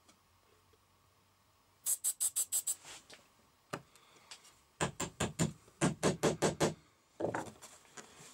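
Rapid clicking and knocking from hand work on a small wooden bar while a threaded metal stud is set into a glued hole: a quick run of sharp clicks about two seconds in, then a longer run of about ten fast knocks past the middle.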